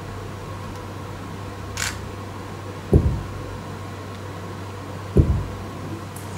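A steady low hum with a brief hiss about two seconds in, then two dull low thumps a little over two seconds apart.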